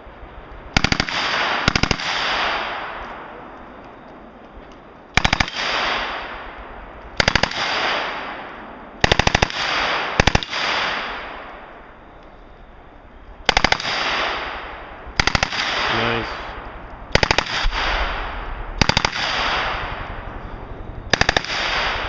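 Lage Max-31 open-bolt submachine gun conversion firing short full-auto bursts, about eleven of them one to four seconds apart, each followed by a long echo rolling off the range.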